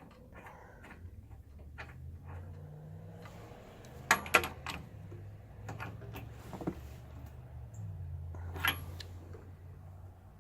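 Sharp metallic clinks and knocks from hand tools while the new spark plug is fitted into the snowblower engine, the loudest pair about four seconds in and single ones near seven and nine seconds. Under them, a low rumble of passing road traffic swells and fades.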